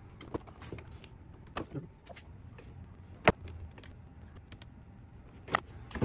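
Scattered light metallic clicks and taps of needle-nose pliers against a small DC motor's solder terminals and wires while they are unsoldered, with one sharper click about three seconds in, over a low steady hum.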